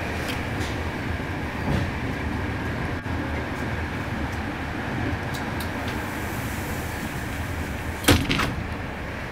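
Steady running noise of a 156A passenger coach under way, a low rumble with a faint steady whine, heard from inside the compartment. A single sharp knock about eight seconds in.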